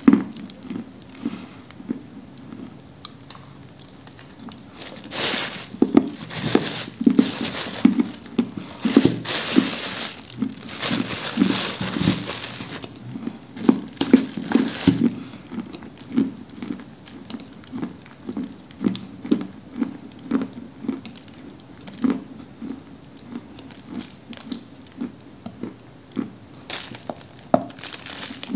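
Close-miked chewing of a dry, dusty pressed block of Orsk 'cream' edible clay: crisp cracks and crumbling crunches with a steady chewing rhythm. The crunching is densest from about five to fifteen seconds in, and a fresh bite cracks off a piece near the end.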